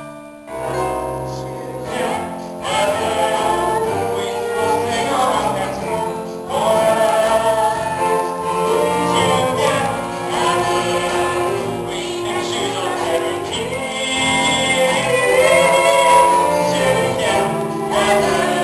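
Singers performing a stage-musical song over instrumental accompaniment.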